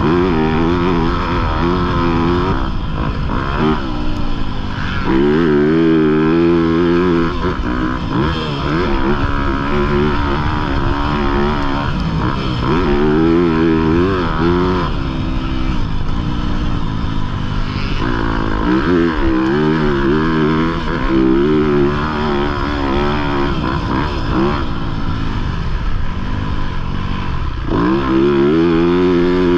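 2021 Yamaha YZ250F's four-stroke single-cylinder engine being ridden hard, its pitch climbing and dropping over and over as the throttle is opened and closed through the gears.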